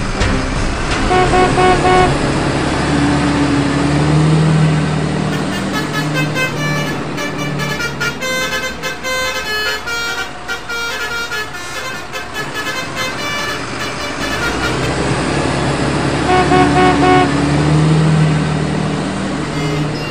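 A train horn sounding in held toots, about four seconds in and again near the end, with a string of short, bright melodic notes between them.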